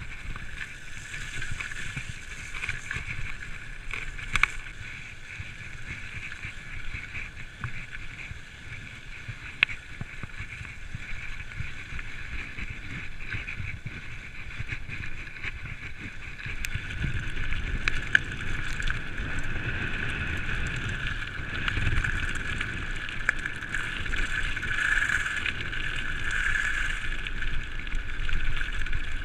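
Full-suspension mountain bike rolling over wet dirt track and lane: steady tyre rumble and wind on the microphone, with a few sharp knocks from bumps. It gets louder about halfway through.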